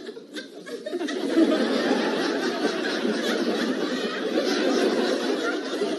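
Sitcom studio audience laughing, swelling up about a second in and carrying on.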